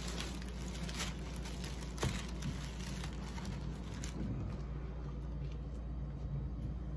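Banana leaves rustling and crinkling as they are handled and pulled apart, with small clicks and taps, over a steady low hum. The rustling thins out about four seconds in.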